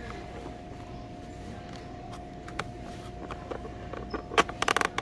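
Handling noise: scattered light clicks over a steady faint hum, then a quick run of sharp clicks and rattling near the end.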